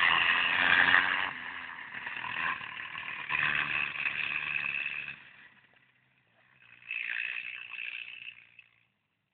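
Off-road buggy engine running and revving, rising and falling in level. It fades out around six seconds in, swells again briefly, then cuts off just before the end.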